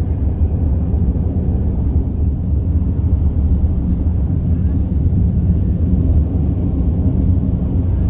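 Steady road and engine rumble heard inside a vehicle's cabin while it drives along at speed, low and unchanging.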